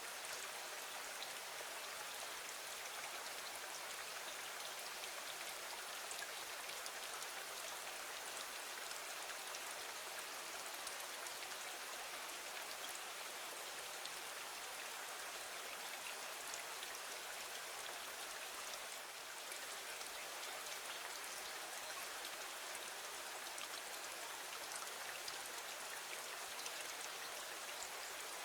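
Steady rain falling against a window: a dense, even patter of drops with no change in strength.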